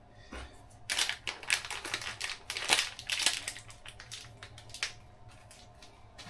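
Irregular light clicks and taps, several a second, thinning out and dying away about five seconds in.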